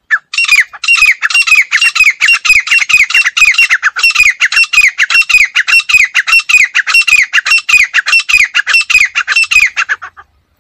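Female grey francolin calling: a rapid, loud run of short, downward-sliding notes, about three to four a second, for nearly ten seconds before stopping near the end.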